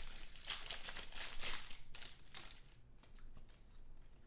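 Plastic trading-card pack wrapper crinkling and cards rustling as a pack is opened and handled, in a quick run of short rustles that eases off after about two and a half seconds.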